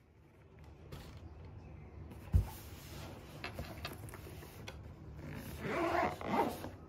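A padded fabric laptop bag handled on a wooden desk: a dull thump about two and a half seconds in as it is set down, then cloth rustling and a zipper-like rasp near the end.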